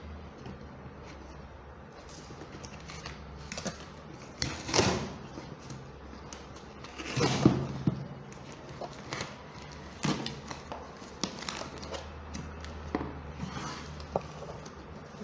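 Scissors slitting packing tape on a cardboard shipping box, then the tape being torn off and the cardboard flaps pulled open, with scattered rips and clicks; the longest, loudest tearing comes about four and a half and seven seconds in.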